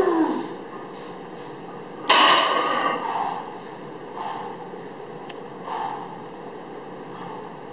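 A lifter's strained grunt at lockout of a heavy barbell deadlift, then a sudden loud burst about two seconds in as the plate-loaded bar returns to the floor. Several short, sharp breaths follow while he sets up over the bar for the next rep.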